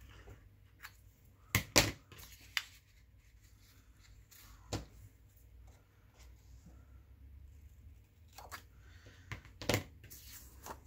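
Scissors snipping through paper in short, scattered cuts, cutting a tag shape. The loudest snips come just under two seconds in and near the end.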